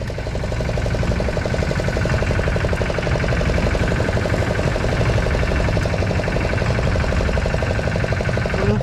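Fishing boat's engine running steadily with a fast, even pulse, building up a little over the first second or so.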